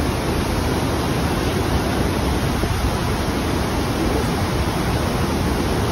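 Steady roar of Niagara Falls' falling water.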